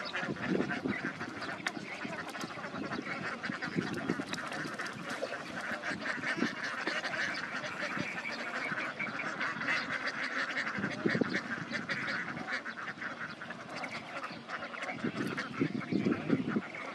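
A large flock of domestic ducks quacking, many calls overlapping into a continuous chatter.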